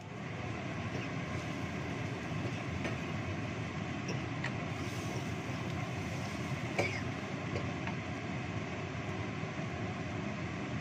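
Thin white spice sauce bubbling steadily at a boil in a non-stick wok. About 7 s in, a wooden spatula stirs it, with a short knock against the pan.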